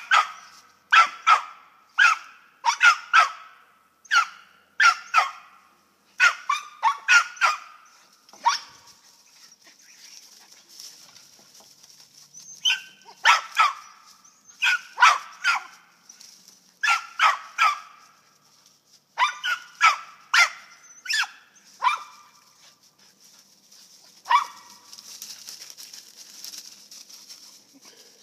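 Squirrel dogs barking treed at the base of a tree, the bark that tells a squirrel is up it. Sharp barks come in quick runs of two or three, stop for a few seconds about a third of the way in, start again, and thin out to a single bark near the end.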